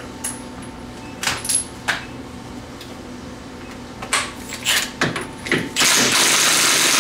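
Metal clinks and clicks as tools and a socket are handled, then, near the end, a Milwaukee cordless impact wrench hammering on the 27 mm axle nut of a Polaris RZR front hub to loosen it, loud and continuous until it cuts off suddenly.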